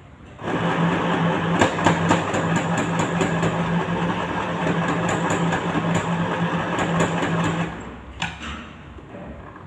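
Sewing machine running at a steady speed as it stitches a seam, with a constant motor hum; it starts about half a second in and stops abruptly about two seconds before the end.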